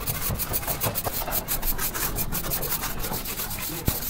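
Sponge rubbed back and forth over a freshly laid brick wall and its wet mortar joints, a scrubbing rasp in quick repeated strokes. A single knock near the end.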